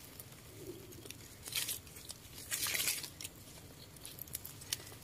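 Dry leaf litter and forest floor rustling and crunching as it is disturbed, with two louder scraping crunches about one and a half and three seconds in.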